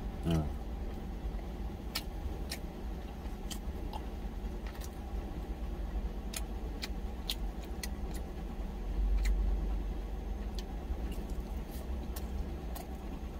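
A truck engine idling as a steady low rumble inside the cab, with scattered sharp clicks of eating: chewing and wooden chopsticks against a plastic lunch container.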